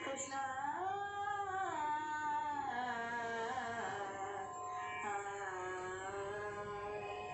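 A girl singing a Carnatic melody in raga Mohanam without clear words: long held vowel notes that slide and bend up and down between pitches.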